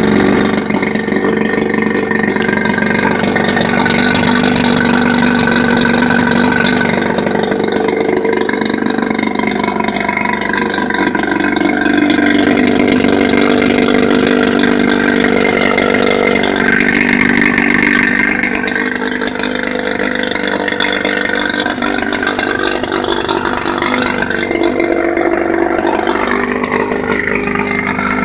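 A 15 hp Johnson outboard motor, a two-cylinder two-stroke, running steadily, its pitch shifting slightly now and then.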